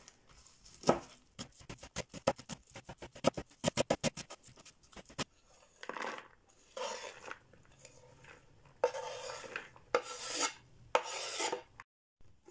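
Kitchen knife chopping green onions on a wooden cutting board in quick, rapid strokes. About six seconds in, this gives way to several rasping sweeps as the chopped onion is scraped off the board into a plastic bowl.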